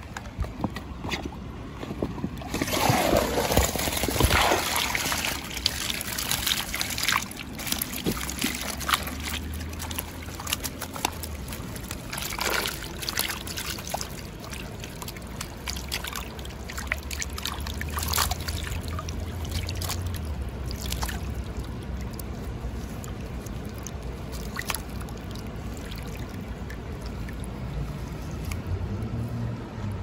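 Shallow river water trickling and splashing close by, with scattered short clicks and knocks; it grows louder about two and a half seconds in.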